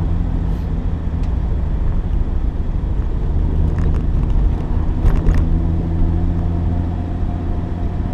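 A car driving at a steady pace: a continuous low engine and road rumble. A few short clicks or knocks cut through it, one about a second in and a brief cluster just past the middle, the loudest around five seconds in.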